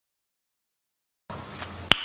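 Dead silence for over a second, then low background noise cuts in, with a single sharp click near the end.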